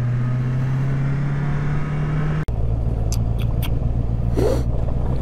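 Car engine and road noise from inside the moving car, the engine note rising slowly as it accelerates. About halfway through the sound breaks off for an instant and comes back as a lower, steady drone, with a few light clicks.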